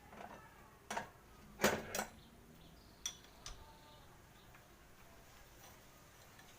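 A few separate metallic clinks and knocks, with a louder double knock about two seconds in. This is the sound of metal tools or parts being handled; no machine is running.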